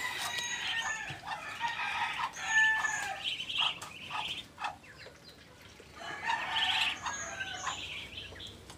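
A brood of ducklings peeping, with many short, high chirps overlapping and a quieter spell midway.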